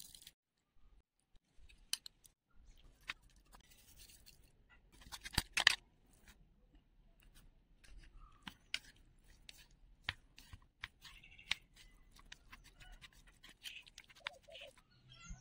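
Scattered clicks, taps and short scrapes of a spoon and wooden chopsticks against a bowl as seasonings go in and noodles are tossed in sauce, with the loudest knocks about five and a half seconds in.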